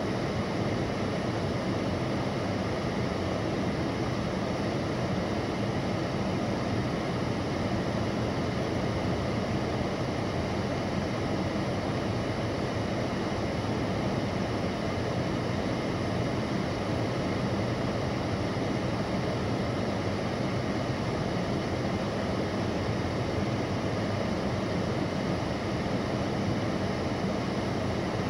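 Steady rush of a parked car's air conditioning blowing inside the cabin.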